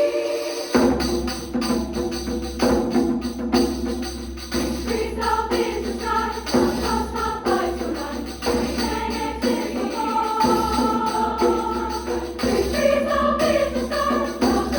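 A treble choir singing with a percussive accompaniment of sharp, regular strokes. The fuller texture comes in about a second in.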